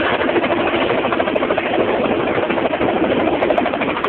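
Helicopter flying low overhead: loud, steady rotor and engine noise with a fast, even beating of the blades.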